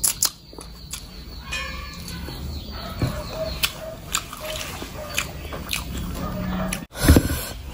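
Close-miked wet chewing of a mouthful of rice and curry eaten by hand, with frequent sharp lip smacks and mouth clicks. A louder smack comes near the end.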